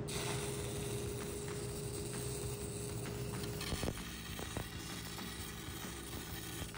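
A steady hum, then a welding arc burning a little over halfway in, with faint crackle and a few sharp pops, as the root of a pipe weld is welded into a ground-out missed tie-in.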